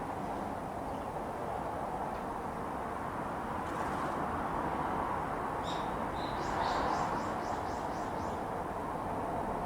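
Steady hiss of road traffic from a nearby busy road. Over it, a small bird calls about two-thirds of the way in: a quick run of about ten short high notes, some four a second.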